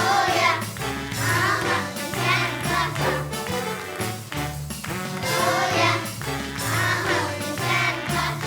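Children's choir singing a Christmas song over instrumental accompaniment with a steady bass line.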